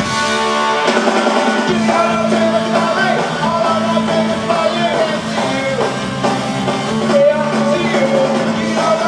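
Live three-piece rock band playing loudly: electric guitar, bass guitar and drum kit, heard through the hall's PA from among the audience.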